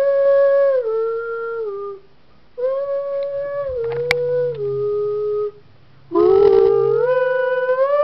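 A person making a high, howl-like tune to coax a Schnauzer into howling along: three long phrases of held notes, each stepping down in pitch, with short pauses between them.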